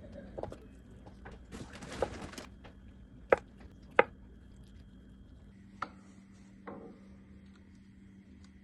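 Handling noises: a short rustle, then two sharp clicks about two-thirds of a second apart, and two fainter knocks later, over a steady low hum.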